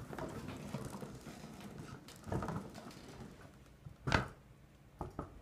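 Homemade BB-8 robot, an RC-car drive inside a large ball, rolling on carpet with soft rustling. There is a sharp knock about four seconds in and two light clicks near the end.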